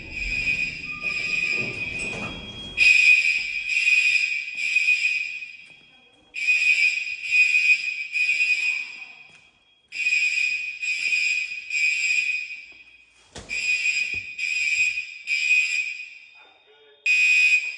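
Fire alarm horns sounding the temporal-three evacuation pattern: groups of three short high-pitched blasts with a pause between groups, repeating about every three and a half seconds and echoing through the building.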